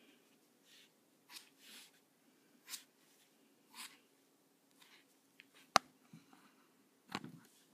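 Strokes of a Micron fine-liner pen on paper: a few short scratchy strokes, then a sharp click about six seconds in and a knock near the end.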